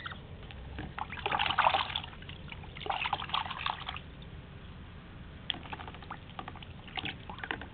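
Canada goose drinking and dabbling its bill in a bucket of water. There are two short bursts of splashing and slurping, then from about halfway on a run of quick, wet clicks as the bill works the water.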